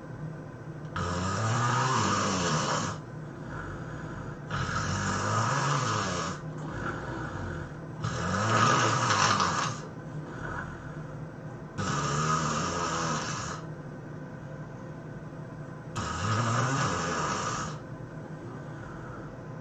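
A person snoring loudly: five long snores, each about two seconds, coming about every four seconds, with quieter breathing between them.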